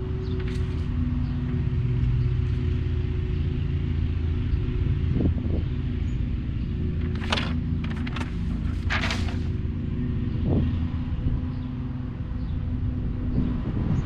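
Small tile wet saw's electric motor running steadily with a low hum, with a few short hissing bursts in the middle.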